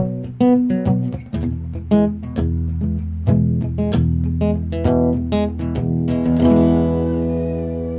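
Mahogany D&D Django Jr small-body acoustic guitar played by plucking: a run of single plucked notes, ending about six seconds in on a chord that is left to ring out and fade.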